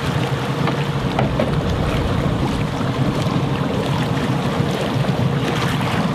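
Boat engine running steadily at trolling speed, with wind on the microphone and water rushing past the hull.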